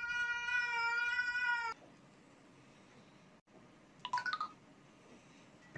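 A cat's long, steady, loud yowl lasting nearly two seconds, cut off abruptly, followed about four seconds in by a short, quieter meow.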